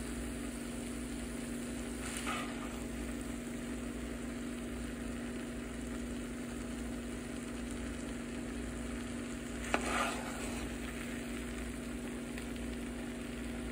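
Yellow rice with vegetables sizzling gently in a hot pan while a spoon stirs it. The spoon scrapes briefly about two seconds in and again near ten seconds, over a steady low hum.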